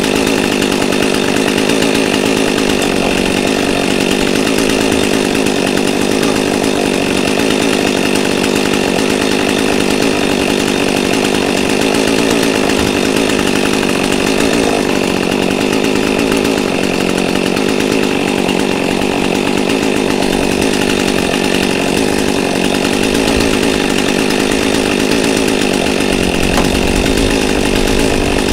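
Small gasoline engine running steadily at one constant speed, with no revving.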